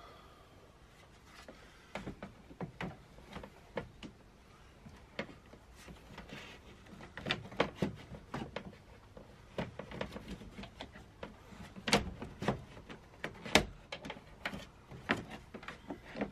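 The plastic interior fan housing of a Fiamma Turbo Vent roof fan is handled and pushed up against the wooden ceiling cladding in a test fit, giving irregular clicks, knocks and plastic rattles. Two sharper knocks come in the last third.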